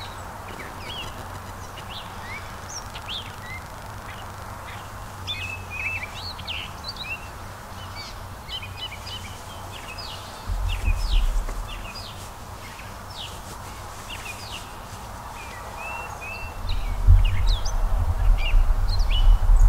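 Songbirds chirping and singing, with many short, quick calls overlapping throughout. A low rumble comes in briefly about halfway through and again for the last few seconds, louder than the birds.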